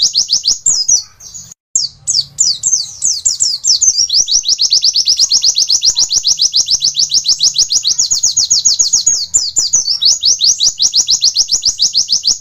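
White-eye (pleci) singing long, fast runs of repeated high 'wit' notes, about ten a second: the rapid-fire 'nembak' song prized by songbird keepers. The run breaks off briefly about one and a half seconds in, then carries on.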